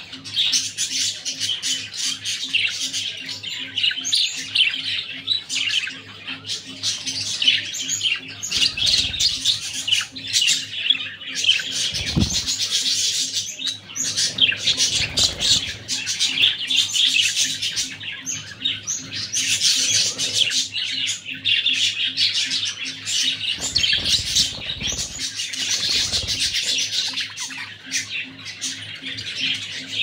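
A group of budgerigars chattering and warbling without pause, a dense mix of quick chirps and squawks.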